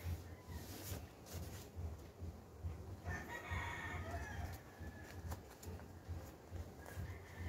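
A rooster crowing once, about three seconds in, with fainter calls near the end. Rustling paper and small clicks come from sheets and a plastic file fastener being handled.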